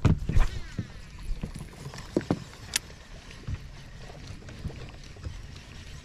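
Knocks and clicks of rod, reel and gear being handled in a fishing boat: a few sharp knocks in the first three seconds, the sharpest a click near the middle, then only a low steady background of water and wind.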